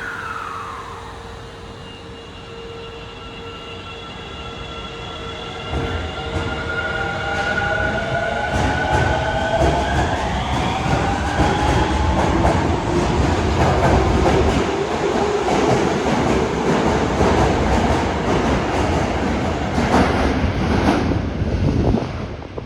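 A subway train pulls away from the platform. Its motors whine in several tones that rise in pitch as it picks up speed, then give way to a growing rumble of wheels, with rail-joint clatter near the end.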